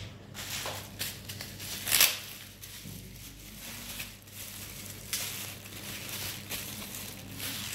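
Packaging crinkling and rustling as it is handled and unwrapped, in irregular bursts, the loudest about two seconds in.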